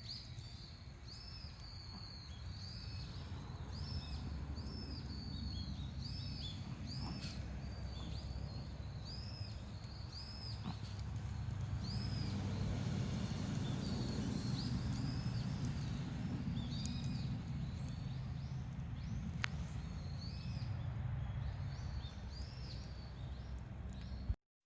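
A bird repeating a short rising-and-falling call a little more than once a second, over a steady low rumble.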